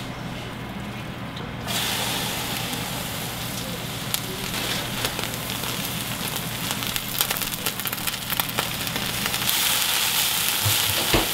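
Pea shoots sautéing in olive oil in a stainless steel skillet: steady sizzling with fine crackles. It starts about two seconds in and grows louder near the end as the shoots are tossed in the pan.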